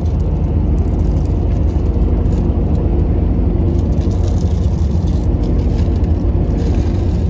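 Steady low drone of a sleeper bus's engine and tyres on the road, heard from inside the cabin while it drives at a constant pace.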